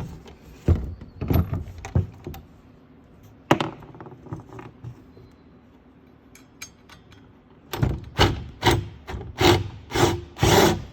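Metal parts of an ATV rear rack knocking and clinking a few times as a nut is set on a bolt, then a run of rasping back-and-forth strokes, about three a second near the end, as a hand tool tightens the nut.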